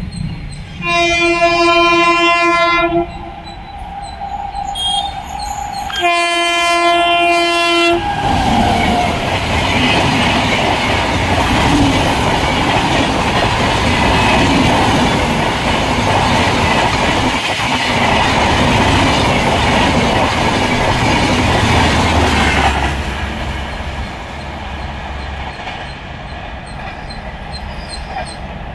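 WAP-7 electric locomotive hauling a Humsafar Express sounds two long horn blasts as it approaches, the second dropping in pitch as it passes. Then comes the loud, steady rush and rattle of the coaches' wheels on the track as the train goes by at speed, fading away near the end.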